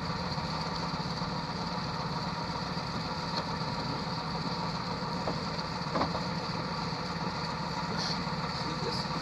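Steady mechanical hum, like an engine idling, with a few faint knocks.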